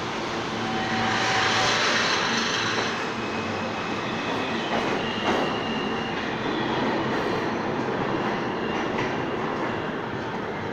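R160A subway train pulling out of an underground station and running off down the tunnel, with steady wheel and motor noise that swells soon after it starts moving. About halfway there is a brief high-pitched tone and a sharp click, and the sound drops off a little near the end as the train gets farther away.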